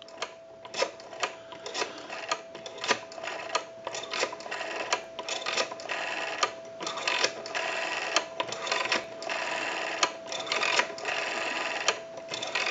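Western Electric rotary telephone dial being wound and released digit after digit, each return sending out a quick run of clicks as it pulses out the number. A steady tone runs underneath.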